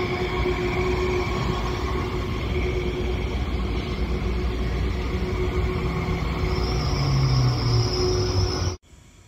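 Frecciarossa 1000 high-speed electric train running past, a steady rumble of wheels on rail with a steady whine over it. The sound cuts off abruptly near the end.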